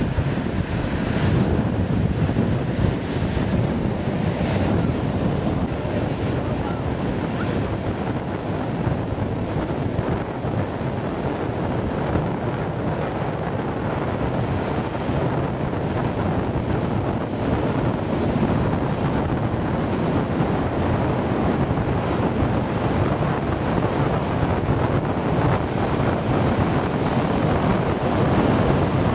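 Ocean surf breaking steadily on a beach, with wind buffeting the microphone.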